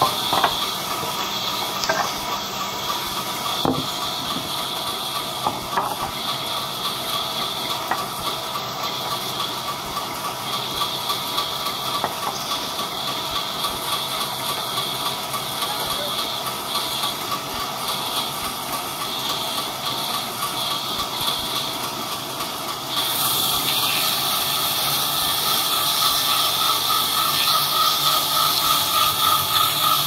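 Large vertical band saw running and ripping a log lengthwise into boards: a steady hissing rasp with a constant whine. It gets louder about three quarters of the way through.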